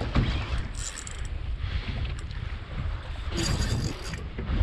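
Wind buffeting the microphone and choppy water against a small boat's hull, with two short hissing bursts, the longer one in the second half.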